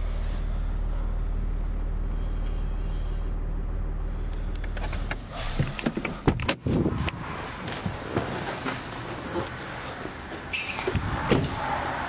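Land Rover Discovery SDV6's V6 diesel engine idling steadily, heard from inside the cabin, then cutting out about five seconds in. A few sharp knocks and thuds follow, with scattered handling noise.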